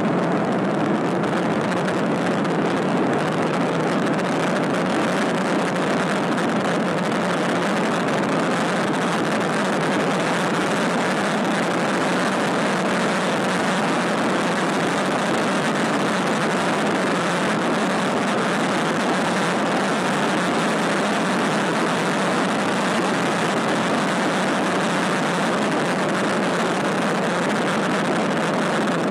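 Patrol car driving at highway speed, heard from inside: a steady, even rush of road and wind noise that does not change.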